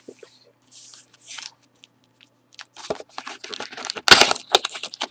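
Trading-card foil packs rustling as they are moved, then the thin cardboard of a small trading-card mini box crackling and tearing as its flap is pried open, loudest about four seconds in.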